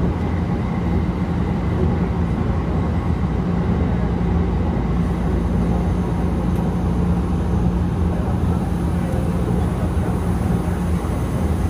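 Yongin EverLine Bombardier Innovia ART 200 light-metro car running steadily between stations, heard from inside the car: a continuous running rumble with a steady low hum.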